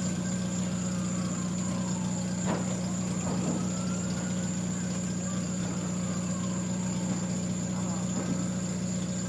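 Steady low hum of an idling engine, with a siren wailing faintly in the distance, its pitch slowly falling and rising. A sharp click sounds about two and a half seconds in.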